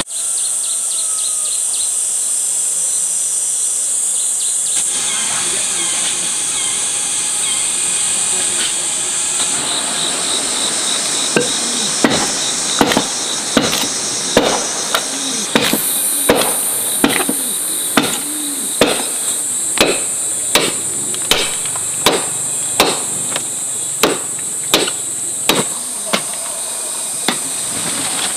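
Steady high-pitched insect drone. About eleven seconds in, a run of regular sharp tool strikes starts, about three every two seconds, and continues until near the end.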